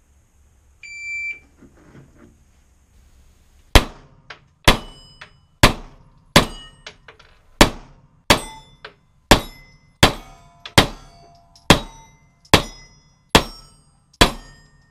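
A shot timer beeps once, then a pistol fires about thirteen shots spaced under a second apart over roughly ten seconds. Fainter metallic clangs of steel plate targets being hit come between the shots.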